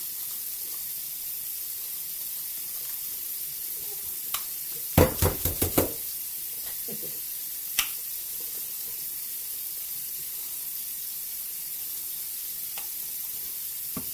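A quick run of five or six sharp knocks about five seconds in, with single knocks just before and after, as a pot of raw chicken gizzards is seasoned and stirred. A steady hiss lies under it all.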